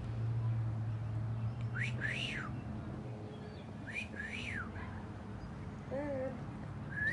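A person whistling the same short phrase over and over to a cockatoo, each a quick upward slide followed by a note that rises and falls. Two full phrases, with a third starting at the very end.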